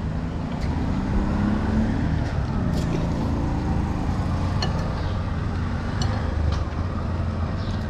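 Steady low rumble of road traffic, with a few light clicks scattered through it.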